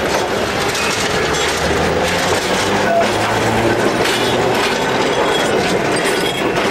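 An electric tram passing close by, its wheels rattling and clicking over the rails, with a low hum from about a second and a half in until about four and a half seconds.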